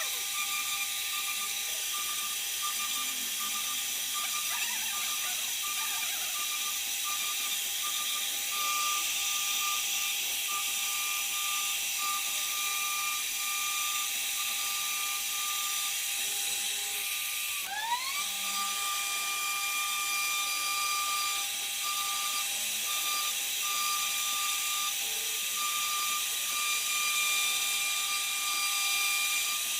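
CNC router spindle whining steadily as its bit cuts a 2D profile into shutter board, with a constant cutting hiss. About two-thirds through, the whine drops briefly in pitch and sweeps quickly back up to its steady note.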